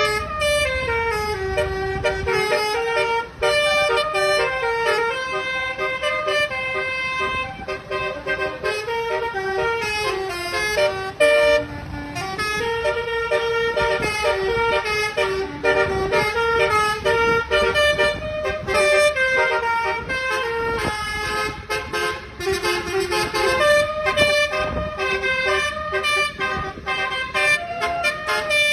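Modified multi-tone musical air horn on a Hino 500 truck playing a melody, several trumpet tones sounding together and stepping from note to note, with brief breaks between phrases.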